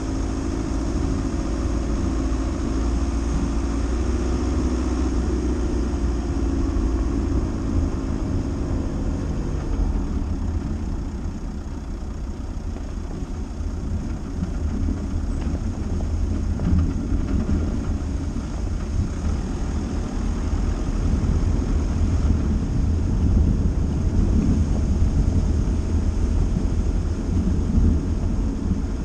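Dacia Duster driving slowly off-road: a steady engine drone over a low rumble from the rough track. The engine's note stands out for about the first ten seconds, then the rumble takes over.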